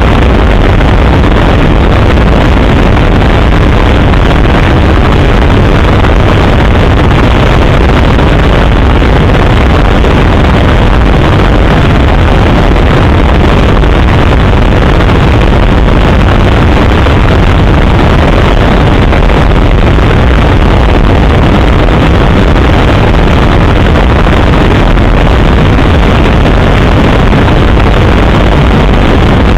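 Helicopter in flight: a loud, steady noise from the engine and rotor, heaviest in the low end.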